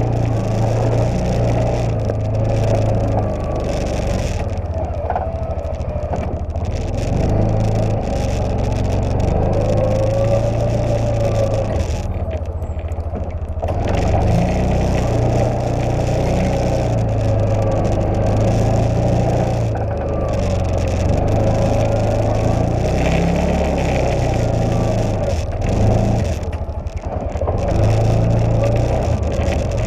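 Side-by-side UTV engine running and working as it pushes a front-mounted snow plow. The engine speed rises and falls, with brief dips about twelve and twenty-six seconds in.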